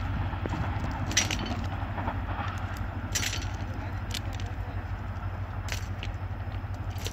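Passenger train moving away: a steady low rumble with scattered sharp clicks, about one every second or two.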